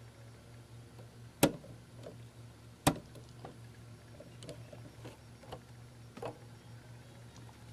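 Small clicks and ticks of a precision screwdriver backing tiny screws out of a circuit board mounted on a plastic base. The two sharpest clicks come about a second and a half apart, and lighter ticks follow every half second or so.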